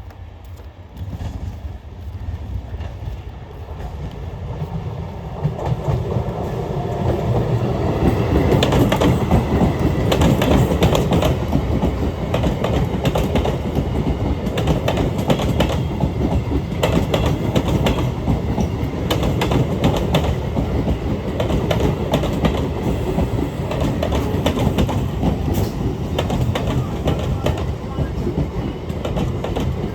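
Electric train approaching and then running past at speed, its wheels clattering rapidly over the rail joints. The sound builds over the first several seconds, then stays loud.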